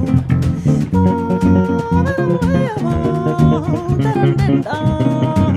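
Bossa nova played live by a band: guitar, bass guitar and drum kit, with a held, sliding wordless vocal melody over them.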